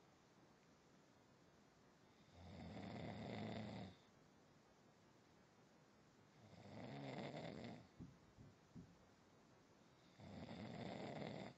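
Slow, regular snoring: three snores in a row, each about a second and a half long and roughly four seconds apart, with a few soft clicks just after the second.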